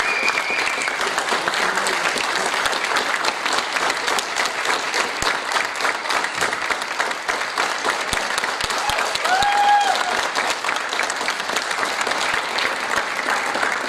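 Theatre audience applauding steadily, a dense patter of many hands clapping. About nine and a half seconds in, one long high-pitched call rises out of the crowd.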